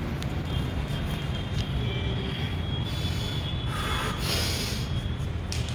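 Steady low background rumble with a few short, forceful breaths, a couple of seconds in and again around the fourth and fifth seconds, as a powerlifter braces over a loaded barbell before a deadlift.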